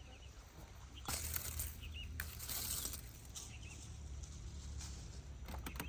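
Two bursts of rustling, about a second in and again at two seconds, with a few short rustles near the end. Small birds chirp briefly in the background.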